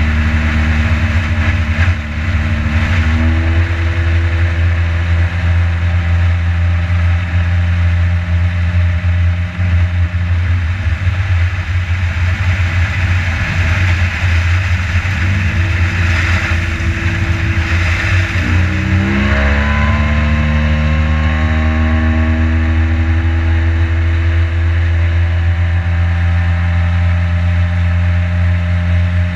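Boat motor running under way. Its pitch climbs about three seconds in, turns rougher and less even in the middle, then climbs again about two-thirds of the way through.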